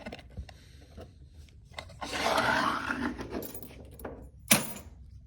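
A picked brass padlock being handled: small clicks, a scraping, rustling stretch in the middle, then one sharp knock near the end.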